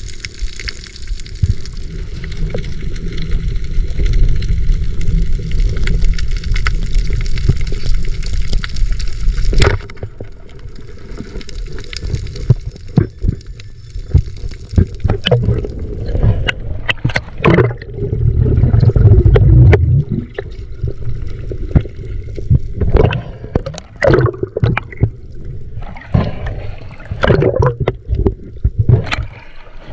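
Water gurgling and splashing around the camera. A steady rush fills the first ten seconds or so, then it changes suddenly to irregular splashes and bubbling.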